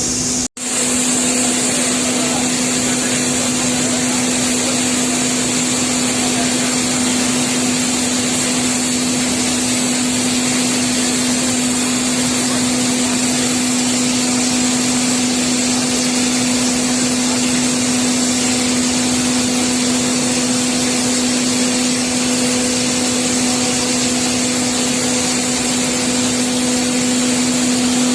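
Coal pouring out of a power-plant coal mill through its fully open door: a steady, dense rushing noise over a constant machine hum. The sound cuts out for a moment about half a second in.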